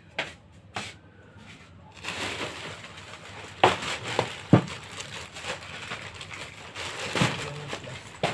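Large clear plastic bag rustling and crinkling as it is handled and stuffed with tinsel garlands and ornaments, starting about two seconds in, with three sharp knocks along the way.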